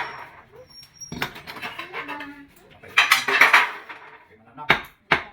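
Hard clinks and scrapes of a tool against ceramic tile, with a louder scraping stretch past the middle and a few sharp knocks near the end.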